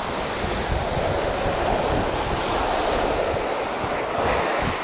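Small waves washing and breaking onto a shallow beach, a steady rush that swells slightly and eases, with wind buffeting the microphone.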